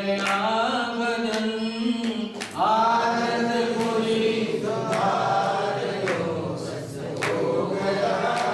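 A man singing a Hindi devotional bhajan in long held notes that slide and waver in pitch, over a sharp beat roughly once a second.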